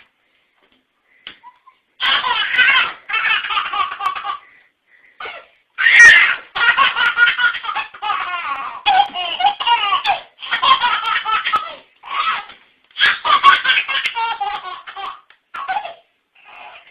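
A baby belly-laughing in repeated bouts, beginning about two seconds in, with short pauses between them.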